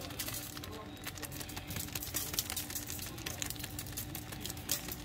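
Seasoning being shaken onto raw steaks on an aluminium-foil tray: a fast, irregular run of small ticks and rattles.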